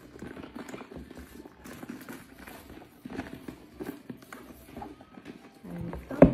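Handling noise from a tote bag being unpacked and lifted out of its box: rustling with many small irregular taps and clicks, and one sharp knock near the end.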